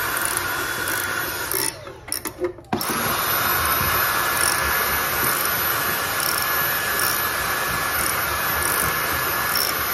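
Cordless stick vacuum running with a steady whine. It cuts out about two seconds in and starts again a second later.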